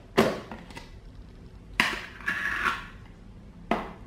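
A plastic tub of sour cream handled on a wooden table: three sharp plastic clicks and knocks roughly two seconds apart, with a crackling rustle after the second.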